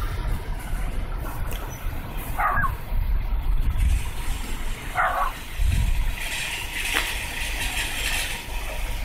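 Outdoor street ambience: a steady low traffic rumble, with a vehicle passing about six to eight seconds in and a few short higher sounds.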